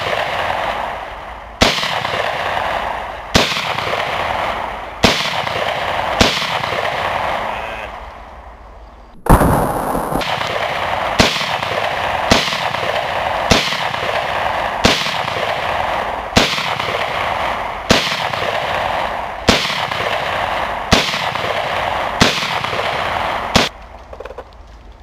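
Kel-Tec .223 semi-automatic pistol fired in a steady string of about fifteen single shots, roughly one every second and a half, each shot trailing off slowly. There is one pause of about three seconds partway, and the firing stops near the end.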